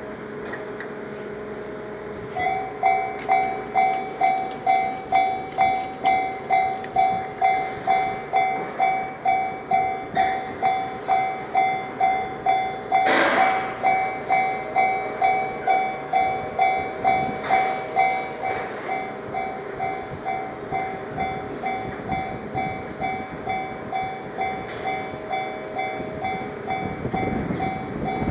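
Japanese railway level-crossing warning bell starts about two seconds in and rings its two-tone ding about twice a second, getting softer in the second half. There is a short loud burst about halfway. Near the end a Takasaki Line train comes through with a low rumble.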